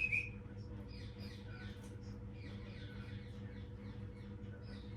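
Small green parrot making faint, rapid, squeaky chirps while being hand-fed, several short falling notes a second, with a sharper single chirp at the start.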